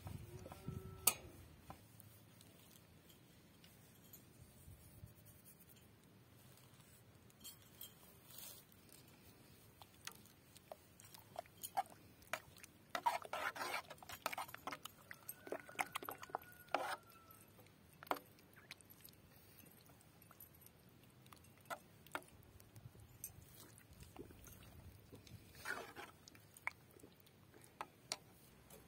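A masher and spoon working a thick eggplant mash in an aluminium pot: sparse soft squelches, taps and scrapes against the pot. They are busiest in the middle and again near the end.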